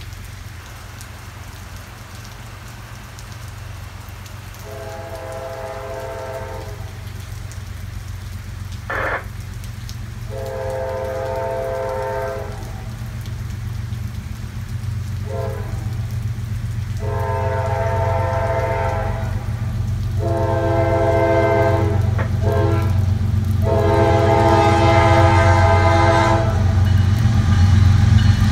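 CSX freight diesel locomotive approaching and sounding its air horn in a string of long and short blasts. Under the horn, the low rumble of the train grows steadily louder. One short sharp crack about nine seconds in.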